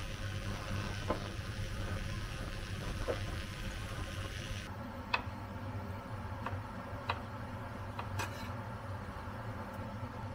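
Red wine simmering in a stainless steel saucepan on an induction hob, a soft hiss over a steady low hum. About halfway through, a chef's knife dicing a tomato knocks sharply on the cutting board a few times, a second or so apart.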